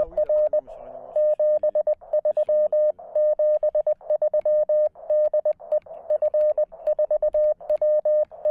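Morse code (CW) from a Weber MTR transceiver: a single steady beep keyed on and off in quick characters, sent in groups with short pauses between them. A band of receiver hiss fills the gaps between the characters.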